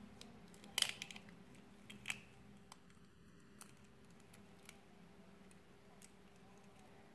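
An egg being cracked and its shell handled over a glass bowl: a quick cluster of sharp taps about a second in and a louder single click near two seconds, then only a few faint ticks while the yolk is separated, over a faint steady hum.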